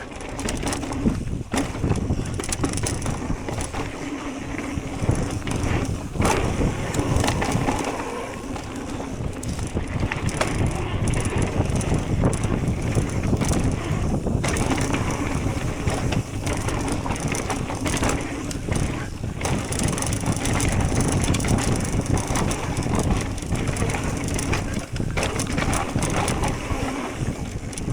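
Electric mountain bike ridden fast down a dirt trail: tyres crunching over dirt and rocks, with the chain and frame rattling and clicking in a steady clatter of knocks.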